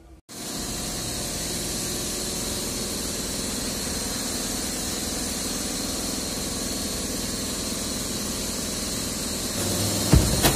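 An engine idling steadily, with a thin, steady high whine over it. A couple of sharp knocks come near the end.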